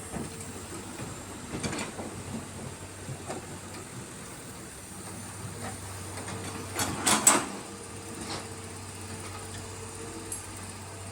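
Excavator diesel engines running steadily under work, with scattered knocks and a louder burst of clatter about seven seconds in, typical of the bucket digging and dumping soil into a dump truck.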